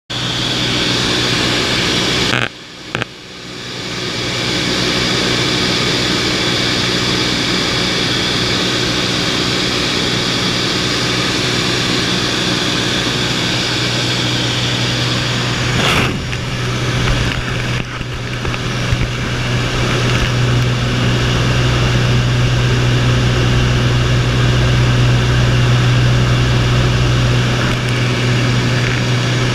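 Light single-engine propeller aeroplane's engine and propeller droning steadily in cruise, heard from inside the cabin, with a strong low hum under a hiss of airflow. The sound dips briefly twice at about two and a half to three seconds in.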